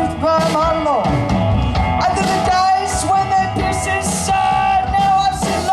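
Live rock band playing, with drums, cymbals and a sustained melody line bending in pitch.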